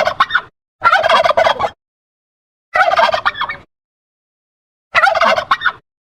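Turkey gobbling: four separate rapid, rattling gobbles, each under a second long, with silent gaps between them.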